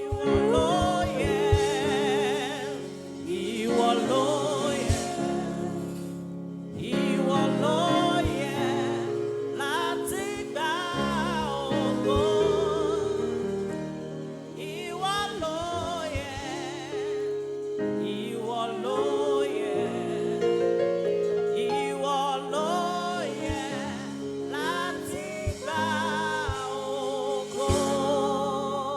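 Yoruba gospel praise music: a voice singing wavering, ornamented runs with vibrato over sustained held chords.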